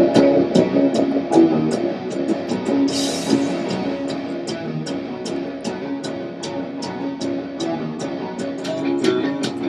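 Rock track with electric guitar and drum kit, cymbal hits keeping a steady beat about three a second, played back over studio monitor speakers.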